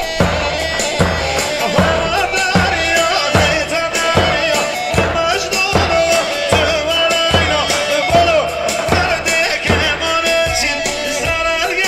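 Davul, the large double-headed bass drum, beating a steady dance rhythm, about one heavy stroke every 0.8 s, under a wavering high melody.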